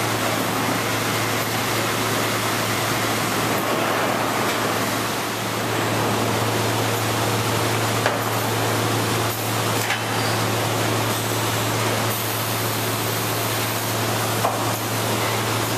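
Woodworking machinery running steadily: a constant low hum under a broad hiss, with a few short clicks or knocks in the second half.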